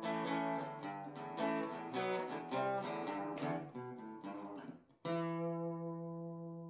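Closing music: acoustic guitar picking a melody, then striking a single chord about five seconds in that rings on.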